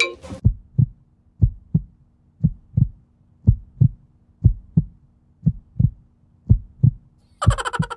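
Heartbeat sound effect: paired low thumps, about one pair a second, over a faint steady hum.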